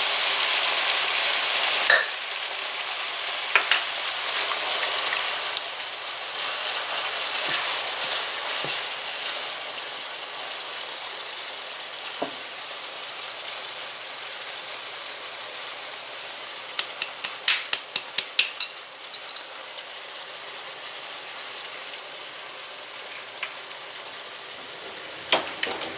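Browned ground beef and sausage sizzling in a skillet as jarred pasta sauce is poured in and stirred with a wooden spoon; the sizzle is loudest at first and fades as the sauce goes in. A quick run of sharp clicks comes about two-thirds through.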